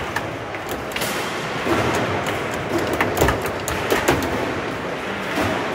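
Table football (foosball) in play: irregular sharp clacks and knocks as the ball is struck by the rod-mounted players and hits the table, over a steady background din.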